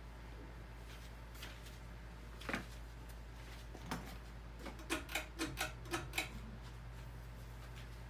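Fanimation Huxley ceiling fan running on low in reverse with a faint steady hum. Light clicks and taps come now and then, in a quick run about halfway through.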